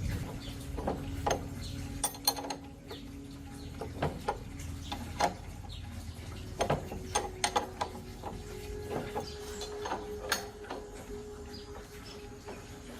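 Irregular metallic clicks and clinks of hand tools working on motorcycle parts, over a faint steady hum.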